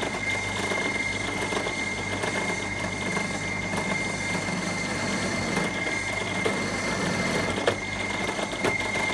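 Bench drill press running with a steady high whine over a low motor hum, its countersink bit cutting a deep countersink into hardwood Tasmanian oak.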